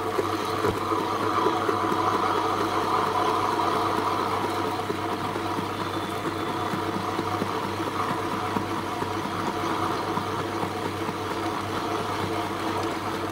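Tabletop wet grinder running steadily, its motor humming and its grinding stone turning through thick urad dal batter in a stationary steel drum.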